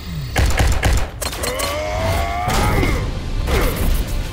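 Cartoon fight sound effects of a giant robot battle: a rapid run of bangs and crashes in the first second and a half, then a long rising tone lasting about a second, over a low rumble.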